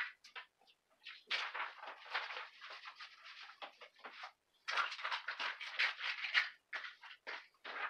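Rustling, light scraping and small clicks of cables and small electronic gear being handled and gathered up, in two long busy stretches after a few scattered clicks.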